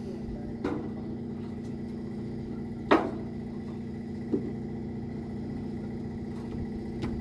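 An engine running steadily with a low, even hum, with four sharp knocks over it: one under a second in, the loudest about three seconds in, a smaller one past four seconds, and one near the end.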